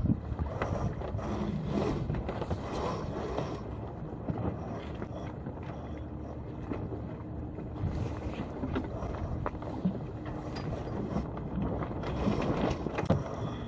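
Wind on the microphone and water against the hull of a small sailboat under way in light air, with scattered clicks and knocks from its rigging and deck fittings.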